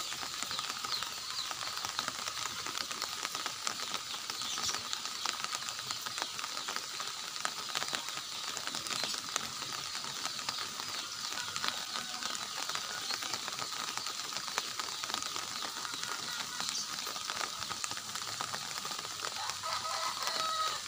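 Steady rain falling on garden foliage and a bamboo rail: a dense, even patter of countless small drop impacts.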